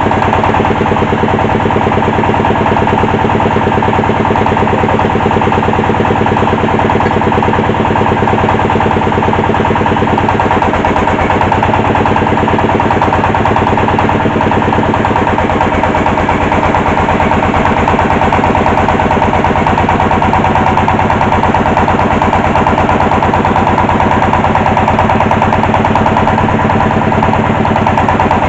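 Engine of a well-drilling machine running steadily under load, loud, with a fast even beat of firing strokes.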